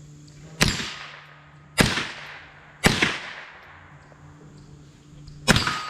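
Four shots from a .22 LR AR-15-style rifle, each a sharp crack with an echoing tail. The first three come about a second apart, and the fourth follows after a pause of about two and a half seconds.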